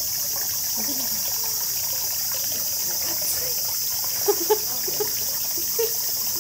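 Steady high-pitched chorus of summer insects over trickling water, with a few short faint sounds between about four and six seconds in.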